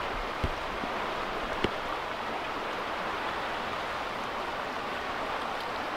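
River water rushing steadily over rocks, with two light knocks in the first two seconds.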